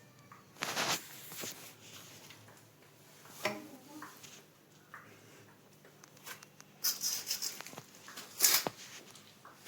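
Irregular handling noises: short scrapes, knocks and rustles, the loudest about a second in and near the end, over a faint steady hum.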